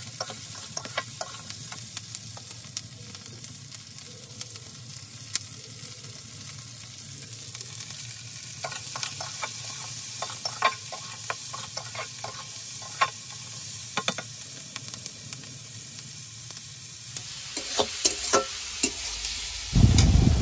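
Diced onion and green capsicum sizzling in hot oil in a steel kadhai, with a metal spatula clacking and scraping against the pan as they are stir-fried. Near the end a louder low rumble comes in.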